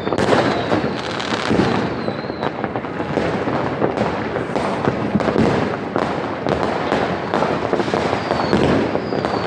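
Fireworks and firecrackers going off all around in a dense, unbroken barrage of overlapping bangs and crackles, with a few faint falling whistles.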